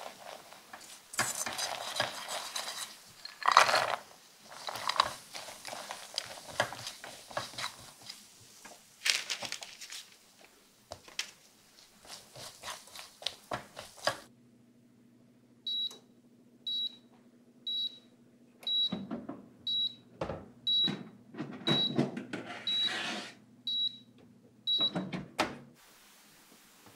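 A spatula scraping and stirring thick caramel and nuts in a small nonstick frying pan. About halfway through, this gives way to a steady low hum with a kitchen appliance beeping about once a second, ten times, over clatter as the wire basket of roasted pumpkin is handled.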